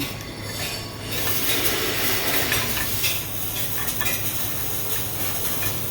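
MIG welding arc crackling and hissing steadily in the welding shop, with a constant low electrical hum underneath.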